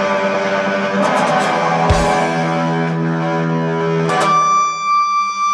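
Electric guitar through an amplifier, a Telecaster-style solid-body: a chord left ringing out, then about four seconds in a single high note held steadily.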